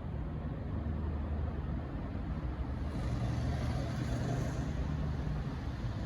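N class diesel locomotive's engine running with a steady low hum that steps up in pitch about three seconds in, joined by a brief hiss.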